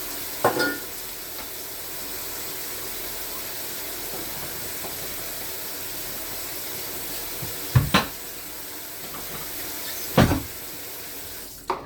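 Kitchen faucet running steadily into the sink, with three knocks of items being handled under the water, about half a second in, near eight seconds and near ten seconds. The water shuts off near the end.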